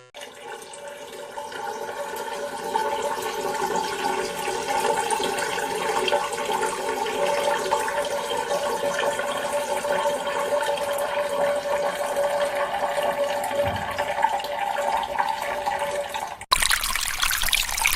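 Peeing sound effect: a steady stream of urine splashing into toilet water. It cuts off abruptly about a second and a half before the end, giving way to a louder, harsher hiss.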